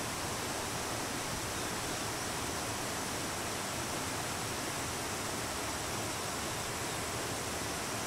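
Steady rushing of a stream flowing over rocks, with a faint high steady buzz of insects above it.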